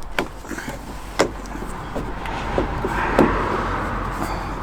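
A Land Rover Discovery 4 door handle is being fitted into the door: several short clicks and knocks of the handle parts, with a scraping rub that swells and fades about halfway through.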